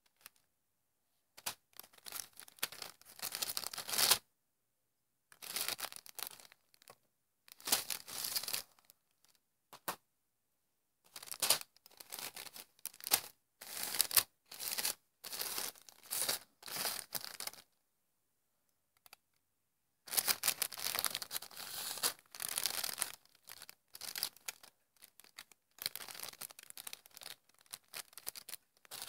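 Plastic Lego pieces of a burr puzzle being handled and fitted together: irregular bursts of rattling, scraping and clicking as the parts slide against one another, broken by short silent pauses.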